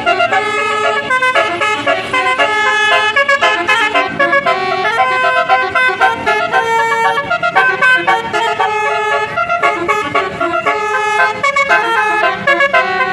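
Bus's Basuri telolet horn playing a melody, a quick run of changing horn notes without a break.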